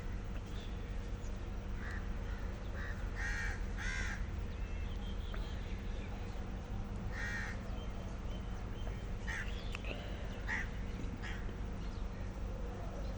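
Several short, harsh animal calls, two close together about three to four seconds in and another about seven seconds in, with fainter ones later, over a steady low hum.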